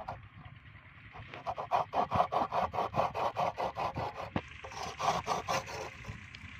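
A curved metal blade scraping rapidly back and forth against the rim of a clay tandoor pot, rasping at about five strokes a second. The scraping is light for the first second, strongest through the middle, breaks off briefly just after four seconds in and then runs on until near the end.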